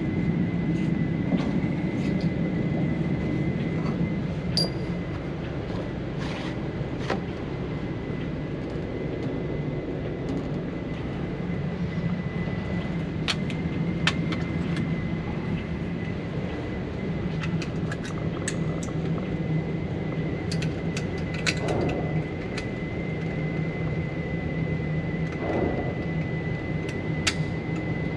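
Steady low rumble with a thin high whine from the ventilation of an indoor shooting range. Scattered small clicks and knocks come from a bolt-action rifle and its cartridges being handled and loaded at the bench.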